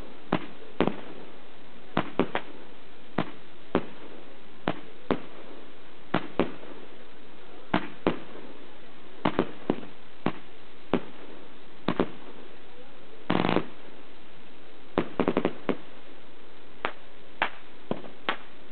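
Aerial fireworks going off: sharp bangs at uneven intervals, about one or two a second. A short dense crackle comes about thirteen seconds in, followed by a quick run of cracks.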